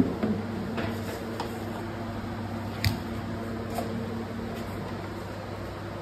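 Metal bread tins being set onto a steel rack trolley: a sharp metallic clank about three seconds in and a few lighter knocks, over a steady machine hum.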